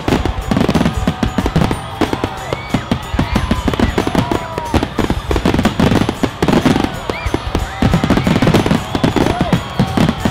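Aerial fireworks shells bursting in rapid, continuous succession: a dense barrage of booms and crackles, with music playing underneath.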